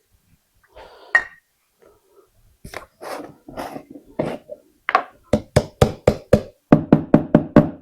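A run of short, sharp knocks or taps, sparse at first and then quickening to about four a second in the second half.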